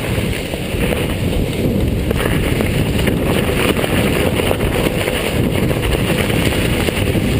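Wind buffeting the camera microphone over the steady rumble of a mountain bike rolling along a snow-covered track, with a few light knocks from the bike.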